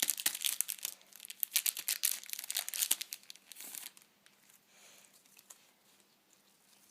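Foil card pack being torn open and crinkled by hand, a dense run of crackling and tearing for about four seconds, then fainter rustling of the wrapper and cards.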